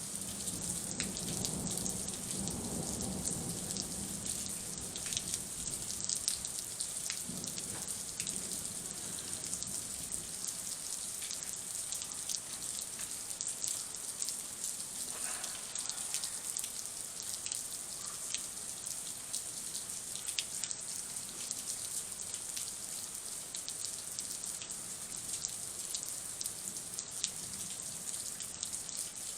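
Heavy thunderstorm rain falling steadily, a continuous hiss with many individual drops striking close by. A low rumble runs under it during the first few seconds.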